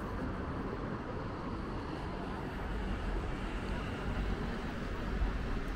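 Steady city street noise: a continuous hum of road traffic with a low rumble that gets stronger about halfway through.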